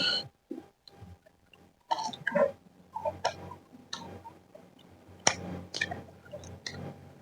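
Close-miked eating sounds: a person chewing with lip smacks and small mouth clicks, in irregular short bursts with pauses between them.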